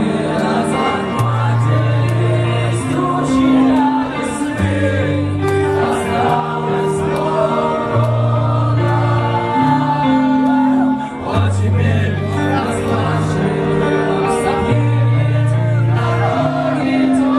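A live band playing a song with singing: held bass notes that change every second or two, voices, and cymbals.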